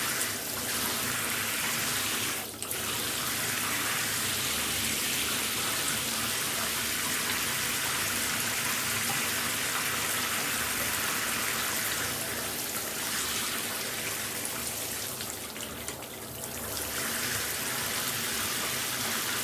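Shower running, a steady hiss of water spray falling in a small room. It dips briefly about two and a half seconds in, and softens for a second or two near the end.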